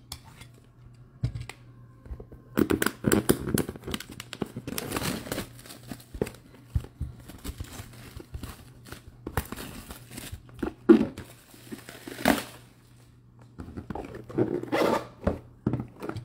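Cardboard boxes being handled and slid about, with irregular bursts of rustling, scraping and tearing of the packaging and a brief lull near the end.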